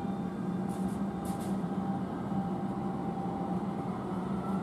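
Siemens P2000 light-rail train pulling away, its running gear giving a steady hum with a couple of faint brief hisses about a second in and a whine that begins to rise near the end as it accelerates.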